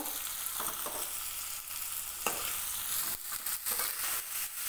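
Chopped onions sizzling in hot oil with cumin seeds in a metal kadai, a steady frying hiss. A few sharp clicks come through it in the second half.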